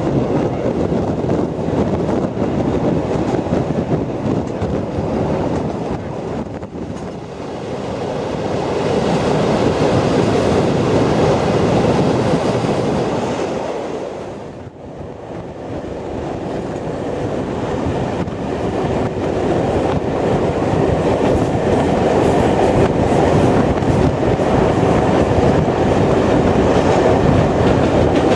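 Passenger train running along the track: a steady rumble of wheels on rails with clickety-clack, heard from aboard, dipping briefly twice, most deeply about halfway through.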